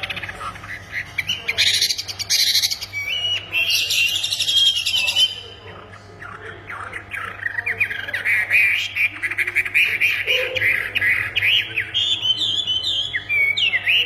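Wambi songbird singing vigorously, a busy, loud run of quick chirps, trills and rattling notes with a short lull about halfway through.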